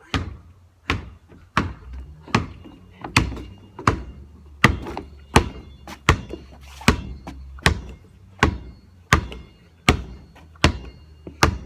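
A basketball being dribbled: evenly spaced bounces, a little more than one a second, about sixteen in all.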